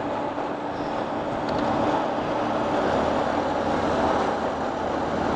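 Wind rushing over a helmet-mounted camera while riding a Honda X-Blade motorcycle at road speed, with its engine running steadily underneath.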